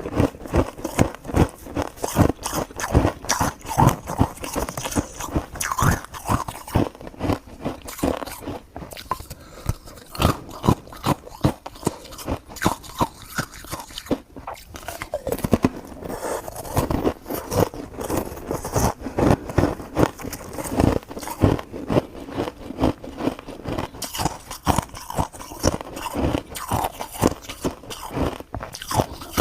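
Continuous crunching and crackling: many short, sharp clicks a second, without a break.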